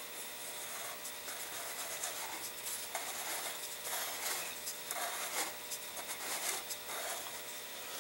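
Pencil scratching along a cardboard motor tube, drawn against the edge of a paper guide, in a series of short irregular strokes.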